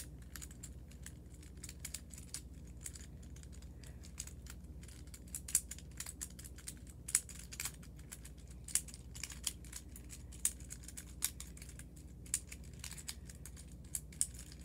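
Plastic infinity cube fidget toy being folded and flipped over and over in the hands, giving irregular clicks as its small hinged cubes snap together.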